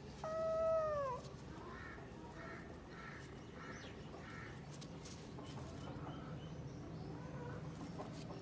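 A kitten meows once, loudly, a falling call about a second long. A run of fainter, short, evenly spaced calls follows.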